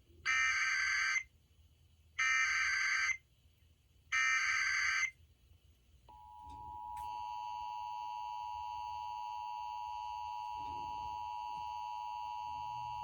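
Emergency Alert System tones on an FM broadcast. There are three short screeching bursts of SAME header data, each under a second and about two seconds apart, then the steady two-tone EAS attention signal begins about six seconds in. Together they mark the start of a Child Abduction Emergency alert.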